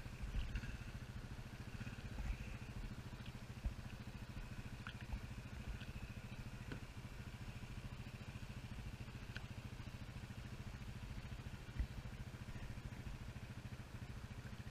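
Faint, steady running of an ATV's (four-wheeler's) engine, with a fine fast pulsing, plus a few light knocks.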